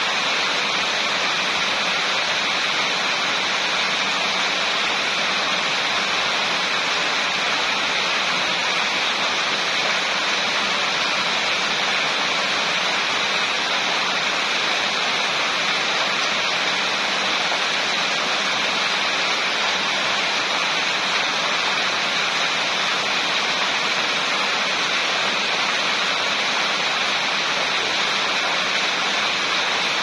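Rain falling steadily: an even, unbroken hiss of water with no separate drops or breaks standing out.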